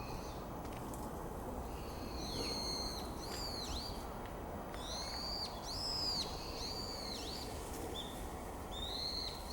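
A cheap digital camera's own electronic noise: a run of whistling glides, each rising then falling, coming in clusters over a steady low rush.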